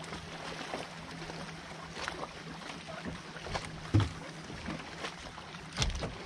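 Knocks and thumps on a fishing boat as the landing net is picked up and handled. The loudest knock is about four seconds in, with another cluster near six seconds, over a steady low hum.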